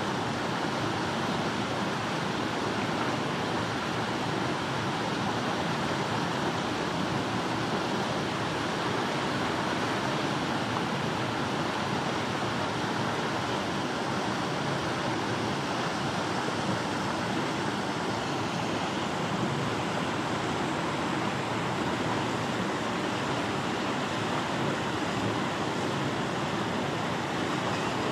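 Steady, even rushing outdoor background noise with no distinct events and no animal calls.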